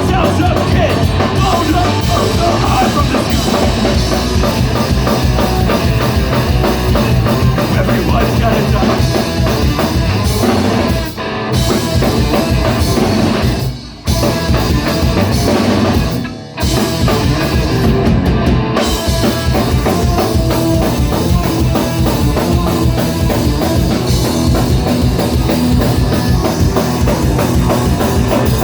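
Live rock band playing, with a full drum kit, breaking off for a moment three times in the middle: about 11, 14 and 16 seconds in.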